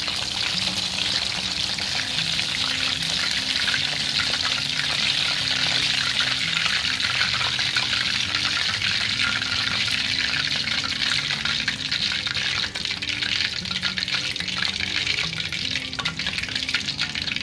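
Batter-coated chicken lollipops deep-frying in hot oil in a kadhai: a steady, crackling sizzle of vigorously bubbling oil.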